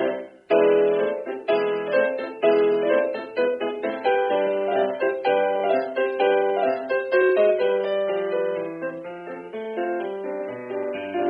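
Piano music: a steady run of notes, with a brief break about half a second in before the playing resumes.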